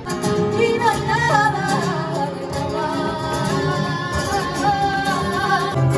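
Live flamenco: a singer's long, wavering vocal lines, held and bent in pitch, over acoustic guitar accompaniment.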